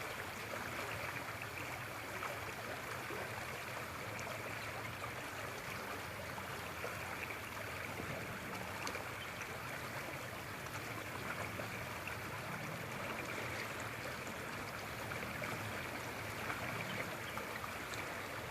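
A creek swollen with high water rushes steadily.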